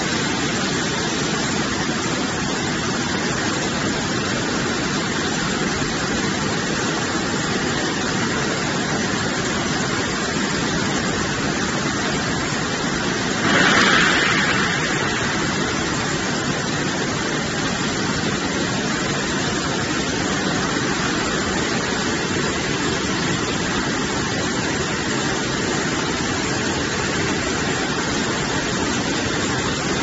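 Poultry washing machine running on a slaughter line: a steady noise of machinery and spraying water, with a brief louder hiss about halfway through.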